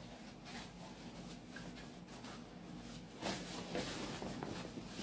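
Fabric rustling as a folded length of printed cloth is carried and handled, faint at first and louder from about three seconds in.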